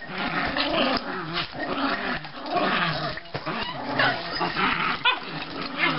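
Small Chihuahua-type dogs play-fighting, growling almost without pause, with the odd yip mixed in.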